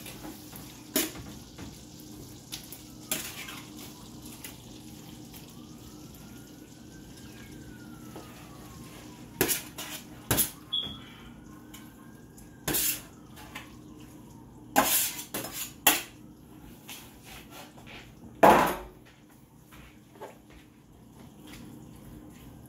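Metal spoon clanking and scraping against a metal tray and a skillet as chicken pieces are spooned into the pan: irregular clatters, the loudest about eighteen seconds in, over a low steady hum.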